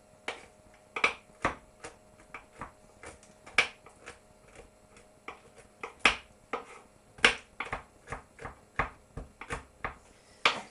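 Knife chopping mixed nuts (almonds, hazelnuts, pecans) on a chopping board: irregular sharp knocks of the blade striking the board, about one or two a second, some harder than others, in slow careful strokes while the big pieces are broken up.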